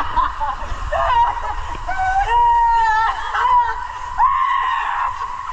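Two men whooping and screaming with excitement as they ride an inner tube down an enclosed water slide: a string of long, held shouts, with a steady rushing noise underneath.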